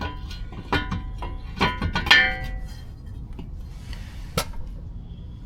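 Steel parts clinking and clanking with a metallic ring, several sharp strikes with the loudest about two seconds in and one more near the end, as the steel spindle and brake backing plate are fitted onto the front axle.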